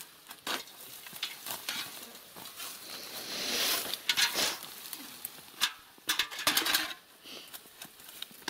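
Shovel digging into soil while earth is scooped into metal buckets: scattered scrapes and knocks, with louder scraping stretches about three seconds in and again around six seconds.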